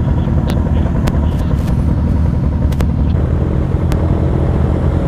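Suzuki SV650 motorcycle engine running steadily, heard from the rider's seat. Several short sharp clicks sound during the first few seconds.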